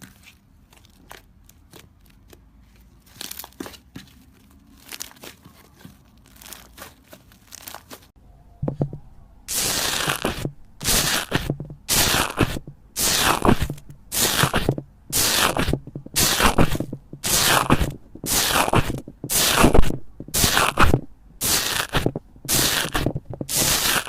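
Crunchy slime being pressed and squeezed: faint crackles at first, then from about ten seconds in a regular run of loud crunches, about one a second.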